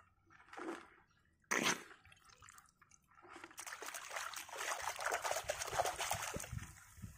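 A hand digging and scooping in wet mud and shallow pond water at a fiddler crab burrow, sloshing and splashing in quick small strokes over the last three and a half seconds. A single sharp noise comes about a second and a half in.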